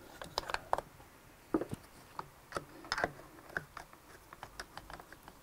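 Irregular light clicks and taps of hands handling the plastic and metal parts of an RS800 CVT transaxle as its cam is rotated out of the way.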